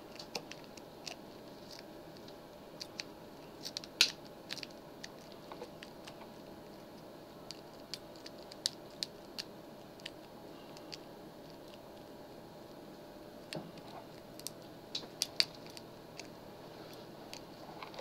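Lock picks and a tension wrench being worked in a hand-held lock: scattered small metallic clicks and scratches at irregular intervals, the sharpest about four seconds in, over a faint steady room hum.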